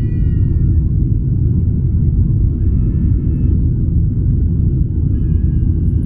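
Steady low rumble of a Boeing 737-800's jet engines and the rushing airflow, heard inside the cabin during the climb after takeoff.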